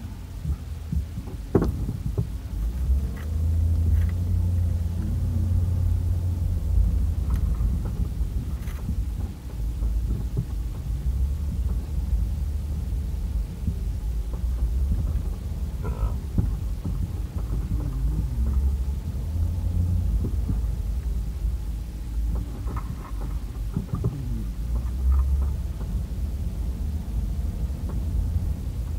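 Low, steady rumble of a vehicle driving, heard from inside the cabin, with a few light knocks and rattles.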